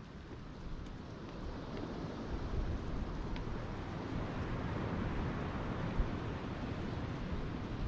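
Melting snow: a steady rushing wash of meltwater with a few faint scattered drips, swelling slightly about two seconds in, with a brief low bump about six seconds in.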